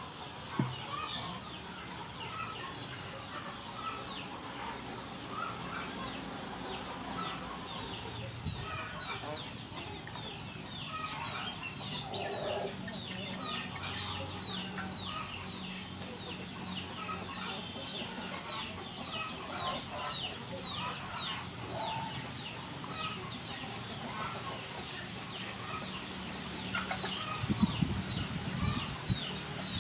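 Chickens clucking with a steady run of high bird chirps, in open-air surroundings. Near the end come a few louder knocks and rustles.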